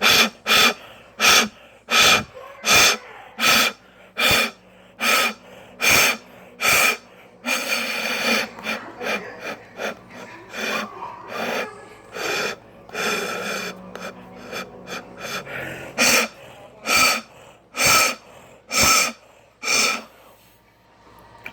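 Toy saxophone played as a string of short, breathy notes, roughly one a second and mostly on the same pitch, with a longer held note about eight seconds in.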